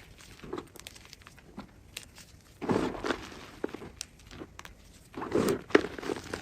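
A block of gym chalk being crushed, crunching and crumbling in two main bursts, one a little before halfway and one near the end, with small crackles and clicks between.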